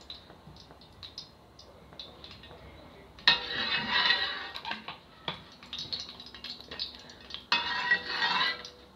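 Metal spatula scraping and sliding around the bottom of an aluminium pot of cooking oil, in two spells of about a second each, the first about three seconds in and the second near the end, with a few light taps and clinks before them.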